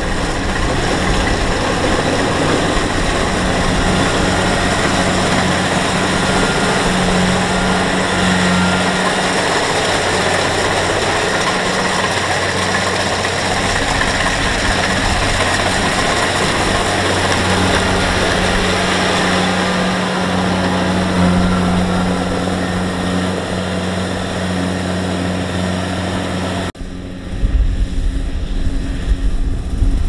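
Kubota DC-70 Plus combine harvester's diesel engine running steadily under load while it cuts and threshes rice, a steady drone under a broad mechanical rush. Near the end the sound changes abruptly to a duller, lower rumble.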